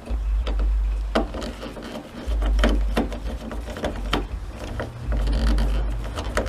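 Scattered clicks and taps of a screwdriver working a Phillips head screw in the plastic cowl panel, with low rumbles on the microphone three times.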